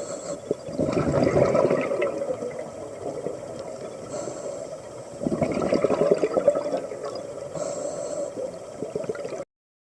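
A scuba diver's regulator breathing underwater: a brief hiss of inhalation, then a gush of exhaled bubbles, twice about four seconds apart, with a weaker third breath near the end. The sound cuts off suddenly just before the end.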